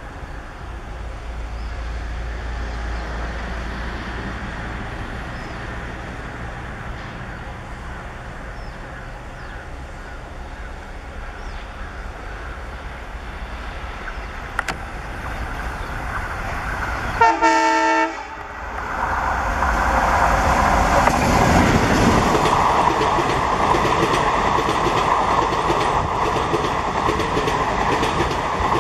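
Indian Railways diesel-hauled train approaching with a rising rumble. About seventeen seconds in its locomotive sounds one horn blast, about a second long, and then the train passes much louder.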